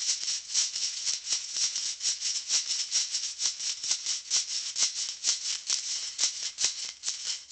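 Wasabi root being grated, a quick, even run of rasping strokes, about four or five a second.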